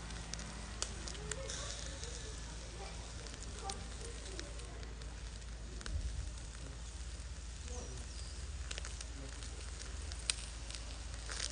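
Chicken wings sizzling over charcoal in a shichirin clay grill, with many scattered sharp crackles and pops from the coals and a low bump about halfway through.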